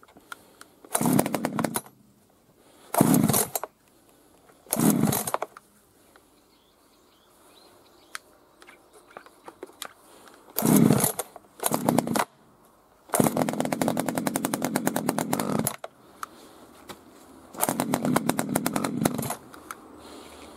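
Hitachi two-stroke chainsaw engine catching and dying again and again: seven short bursts of firing, most under a second, the longest running about two and a half seconds a little past the middle. It is a hard-starting saw that fires but won't keep running.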